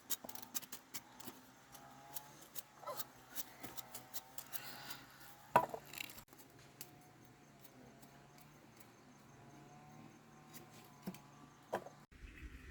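Scattered small clicks and rustles of handling, with one sharp knock a little past halfway, over a faint steady hum.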